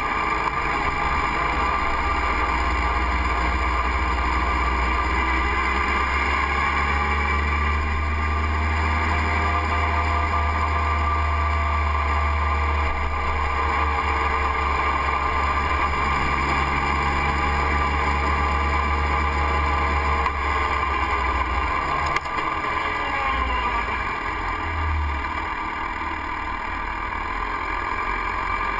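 Motorcycle engine running while ridden along a town street, its pitch rising and falling with the throttle. A low rumble underneath drops away about three-quarters of the way through.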